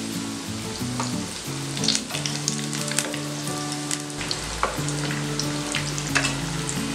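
Soya vadai patties deep-frying in hot oil in a kadai, sizzling steadily. A few sharp clicks of a perforated steel skimmer sound as the patties are turned.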